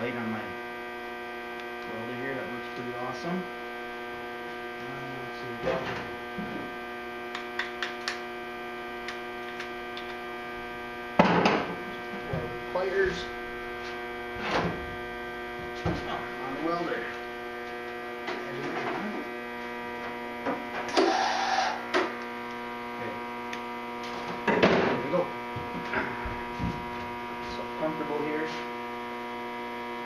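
Steady electrical hum from a powered MIG welder, with scattered clicks and knocks. About two-thirds of the way through, a hissing, crackling burst lasts about a second: a short MIG weld.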